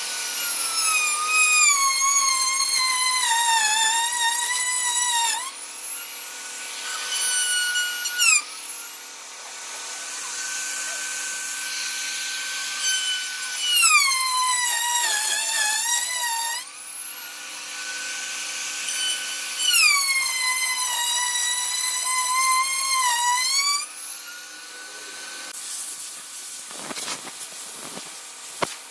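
Electric power tool cutting wood: its high motor whine drops in pitch each time it bites into the wood and climbs back up when it clears, three cuts in all. The motor stops near the end, followed by scraping and a few knocks.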